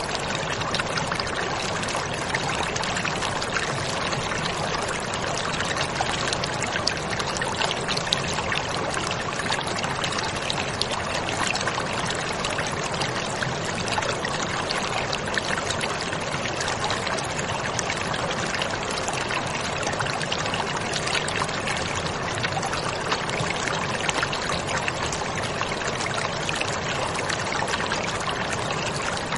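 Water pouring steadily, a constant unbroken rushing with no pauses.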